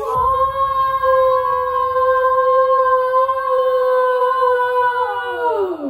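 A voice singing one long note, held steady for about five seconds and sliding down in pitch at the end, like a dramatic vocal sound effect.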